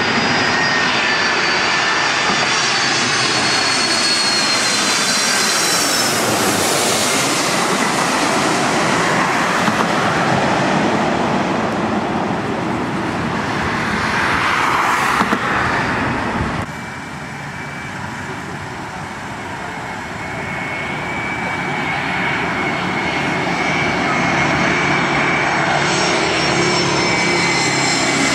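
Jet airliner engines whining as a twin-engine widebody passes low overhead on approach, the high tones sliding down in pitch as it goes by. About two-thirds through the sound cuts off abruptly. A second, narrowbody twinjet's engines then grow louder as it approaches overhead.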